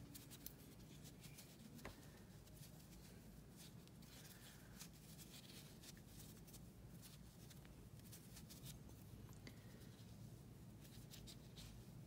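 Near silence: quiet room tone with faint rustling and light ticks from hands handling and squeezing a stuffed crocheted piece.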